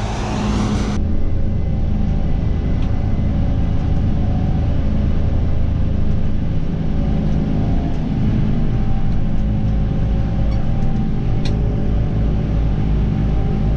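Diesel engine of large farm harvest machinery running steadily, a low rumble with a constant hum.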